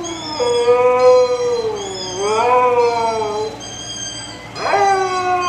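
Husky howling in long, drawn-out calls that rise and fall in pitch, three in a row, copying another husky's howls played from a phone.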